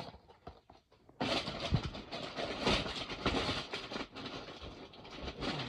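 Toy packaging being handled and opened: dense rustling and crinkling that starts about a second in and dies away near the end.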